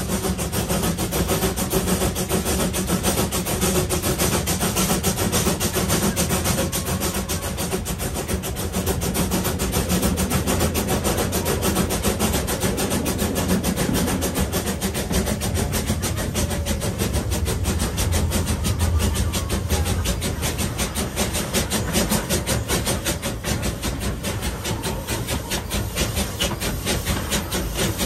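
Small steam tank locomotive under way, heard close from the coach coupled behind it: a fast, even beat over the rumble of wheels running on the rails.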